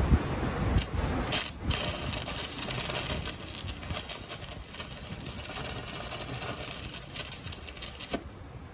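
A harsh, crackling hiss from metalworking on the axle starts about a second in, runs steadily, and cuts off sharply near the end.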